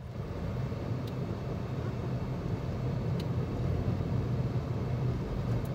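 Car driving, heard from inside the cabin: a steady low rumble of engine and road noise, with a few faint clicks.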